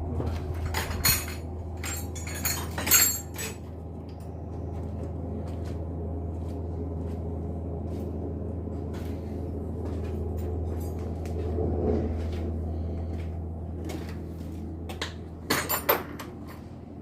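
Metal hand tools, sockets and a ratchet or spanner, clinking and clanking in a few short clusters near the start and again near the end, over a steady low hum.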